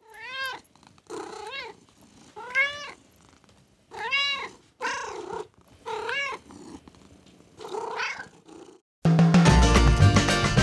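Kitten meowing about eight times: short, high meows that rise and fall in pitch. About nine seconds in, Latin-style music with guitar cuts in abruptly and is louder than the meows.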